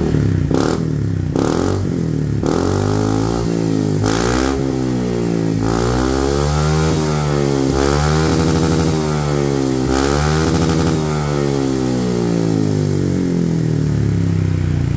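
Honda PCX 160's single-cylinder engine through an SKR aftermarket exhaust, revved while the scooter stands parked: a few quick throttle blips, then the revs rising and falling again and again. It is mellow at low revs and raspy at the top, with a slightly snappy crack to it.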